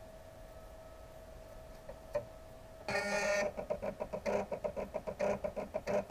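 Stepper motors driving the DVD-drive sleds of a homemade laser engraver as it traces a design: a single click about two seconds in, then from about three seconds a buzzy whirring in quick short bursts, about five a second, as the sleds step from point to point.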